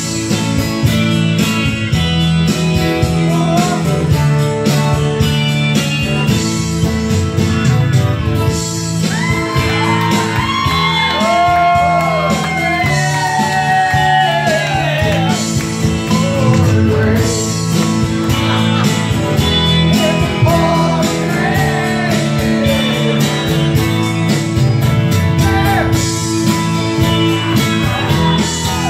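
Live song on two strummed acoustic guitars, with a man singing over them in stretches.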